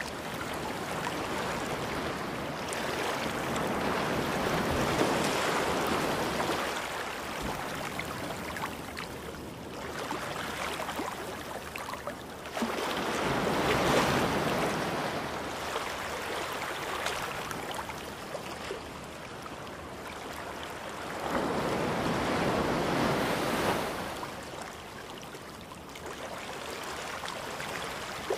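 Background sound of surf: a steady rushing that swells and eases three times.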